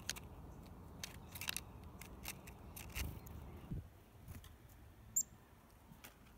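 Sharp, irregular clicks of a black-capped chickadee picking through sunflower seeds in a feeder tray, over a low rumble that drops away partway through. A single short, very high bird chirp about five seconds in.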